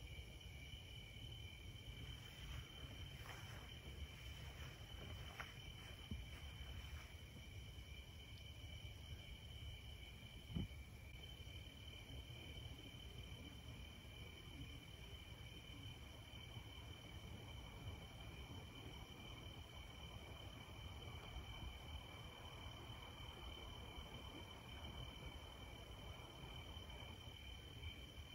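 Faint chorus of crickets on a summer night, a steady high trill in two unbroken tones. A single brief knock sounds about ten seconds in.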